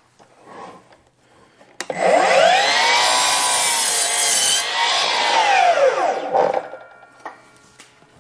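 Electric power saw cutting through a 2x4. The motor starts about two seconds in, its whine rising as it spins up, runs loud through the cut, then falls away as it winds down a little over a second before the end.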